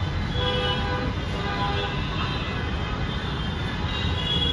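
Steady low rumble of a vehicle or traffic, with short high-pitched tones sounding over it several times.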